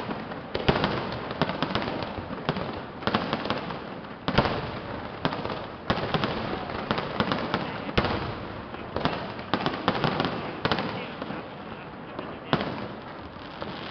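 Aerial fireworks shells bursting overhead: a rapid, irregular run of sharp bangs, many close together, over continuous crackle and rumble.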